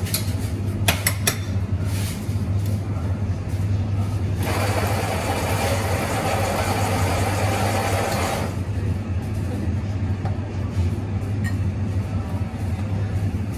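Espresso bar work over a steady low hum: three sharp knocks about a second in, typical of a portafilter being knocked out, then a coffee grinder running for about four seconds in the middle, with a few light clicks of cups and tools.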